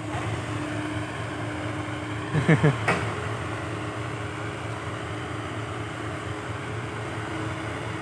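Komatsu PC120-5 excavator's diesel engine running steadily while it works, with a faint steady tone over the hum. About two and a half seconds in, a brief cluster of quick sounds falling in pitch stands out above it.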